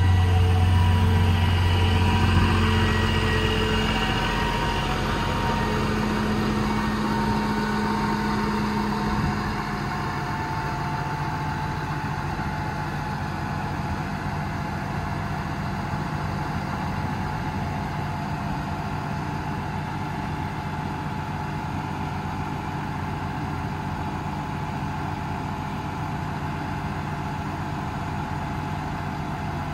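Cummins 6.7 turbodiesel of a Ram 5500 running steadily, with a faint whine that slowly falls in pitch. About nine to ten seconds in, the engine note changes and the sound drops a little, then it runs on steady.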